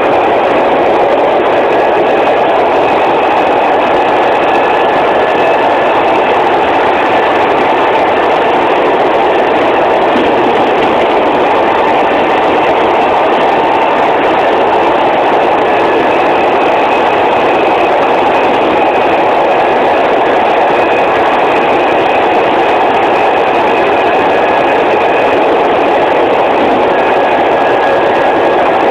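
Broad Street Line subway car running at speed, heard from inside the car: a loud, steady rush of wheels on rail, with a faint high whine coming and going.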